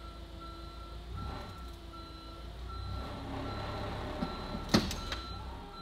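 Forklift reversing alarm beeping in a steady repeating pattern over the low rumble of its engine as it backs up to pull on the chain. A single sharp bang stands out near the end.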